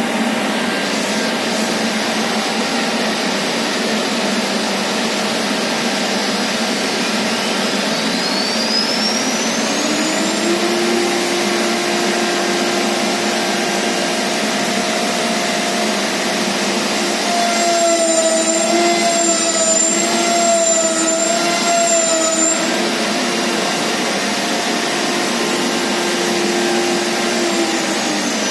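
CNC milling router running with a loud, steady rushing noise. About a third of the way in its spindle spins up with a rising whine and then holds a steady hum. That hum wavers and grows louder for a few seconds past the middle, and a falling whine comes near the end.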